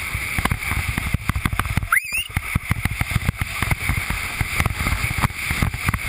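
Windsurf board planing fast over chop: the hull slapping and hissing on the water in dense, irregular low thumps, with wind buffeting the camera microphone. A brief high squeal rises and warbles about two seconds in.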